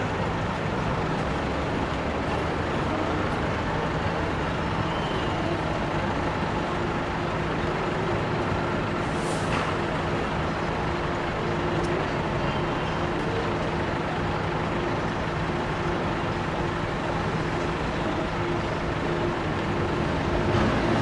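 A large vehicle's engine idling, a steady low drone over traffic noise, with a brief hiss about nine seconds in.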